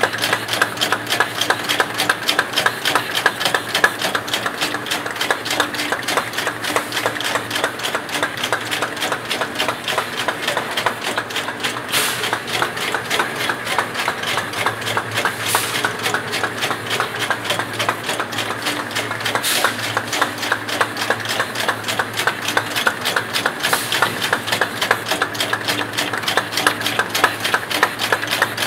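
Automatic rotary bottle-cap machine running: a rapid, steady clatter from the turret handling plastic caps over a constant hum. A short sharp sound comes about every four seconds.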